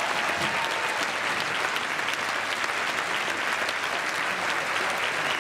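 Audience applauding: steady, dense clapping throughout.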